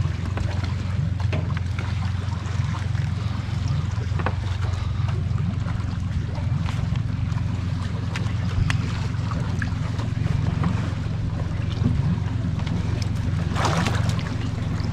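Boat motor idling with a steady low hum, with faint ticks and small splashes as the trotline is pulled in by hand, and a brief louder splash about a second before the end.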